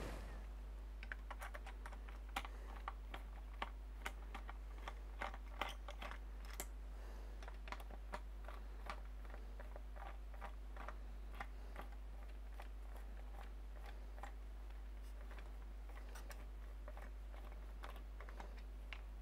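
Irregular light clicks and taps of PC parts and screws being handled during a computer teardown. They come thick in the first dozen seconds, then thin out.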